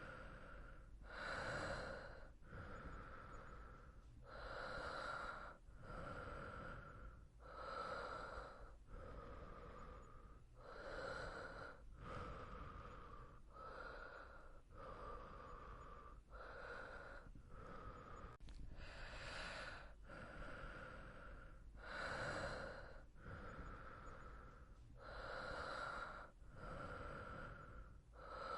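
A sleeping person breathing softly and slowly, in and out in a steady rhythm, a full breath about every three seconds.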